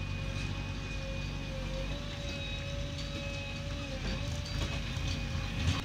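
JCB 3DX backhoe loader's diesel engine running under load while the backhoe digs and dumps soil, a low steady drone with a steady high whine over it. A thump near the end.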